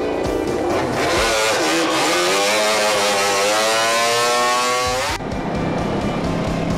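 Racing motorcycle engine accelerating hard, its pitch dipping briefly and then climbing steadily, cut off suddenly about five seconds in. Background music before and after.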